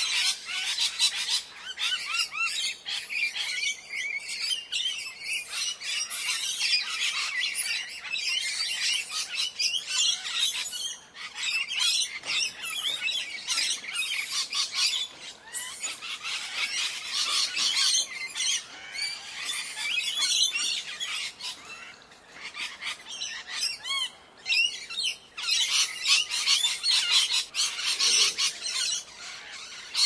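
A flock of plum-headed parakeets chattering: a dense, continuous mix of shrill, high calls and squawks overlapping one another, with a few brief lulls.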